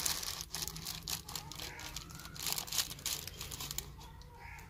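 Dry rustling and crinkling handling noises with scattered sharp clicks, coming in irregular bursts that die down after about four seconds.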